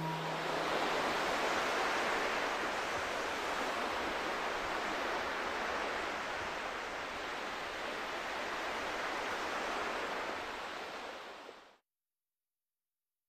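Steady hiss with no music or voice, easing slightly before it cuts off into silence near the end.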